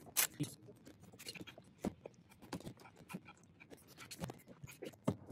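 Utility knife blade cutting into the soft plastic of a Honda Civic dashboard top, a run of short, irregular scratching strokes.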